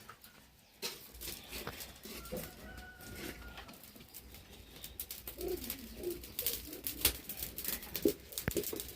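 A dove cooing low, with scattered light clicks and knocks.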